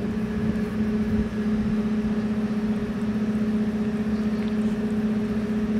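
A steady machine hum with a low rumble underneath, unchanging throughout.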